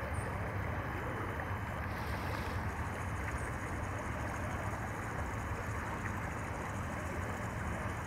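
Steady rushing of a shallow river flowing over rocks, with a low rumble underneath.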